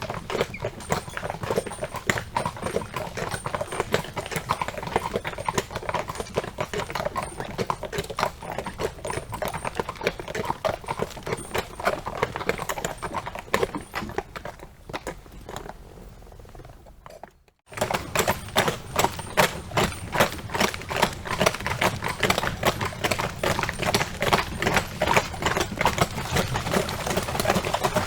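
Horse hooves clip-clopping in a rapid, steady run of hoof strikes. The strikes fade out about two-thirds of the way through, there is a brief moment of silence, and then a louder run of hoofbeats starts.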